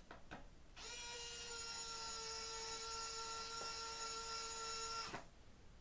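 Small AAA-battery electric screwdriver running with a steady whine, driving a screw into a model plane's aileron control horn; it starts about a second in and stops near the end.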